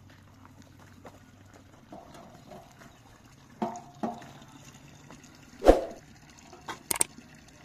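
Block-laying work: scattered knocks as concrete blocks and a metal straightedge are set and tapped into place. There are two short ringing taps about halfway through, a heavier thud about three-quarters in, and two sharp clicks near the end.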